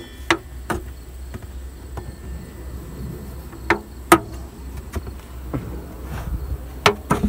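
A few short, sharp knocks or taps: three near the start, two about four seconds in, and two near the end. A steady low hum lies under them.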